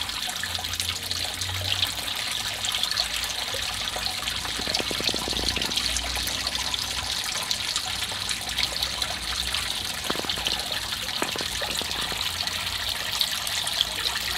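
Thin stream of water pouring from a rock spout into a shallow pond: a steady trickle and splash onto the water surface.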